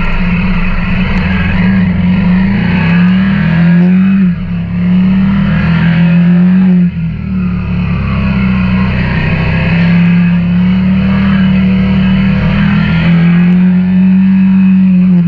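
KTM 890 Duke R's parallel-twin engine running under way, heard from onboard. The engine note climbs and then drops off briefly twice, about four and seven seconds in, before running on steadily.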